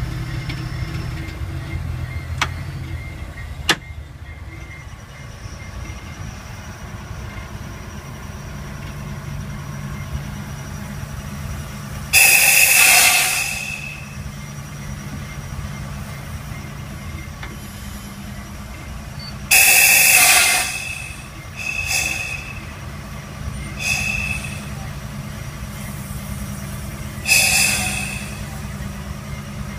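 Budd RDC's Detroit Diesel engine running warm under load as the car rolls slowly, a steady low drone, with two sharp clicks in the first few seconds. Five sudden, loud, high-pitched bursts break in over it from about a third of the way in, each dying away within a second or two.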